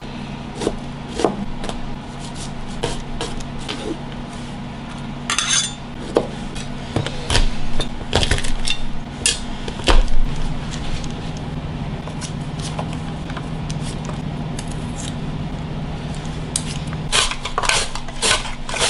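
Chef's knife cutting shallot and garlic on a plastic cutting board: scattered knocks and taps over a steady low hum. Near the end, a run of quick strokes on a mandoline slicer.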